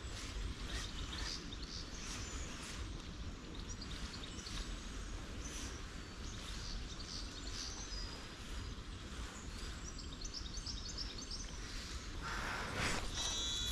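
Birds chirping over a steady low rumble of outdoor background noise, with a louder, quick run of repeated bird notes near the end.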